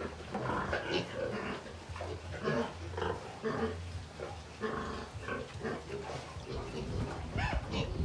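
A litter of Duroc and white piglets grunting as they crowd and feed at a dish, many short calls overlapping.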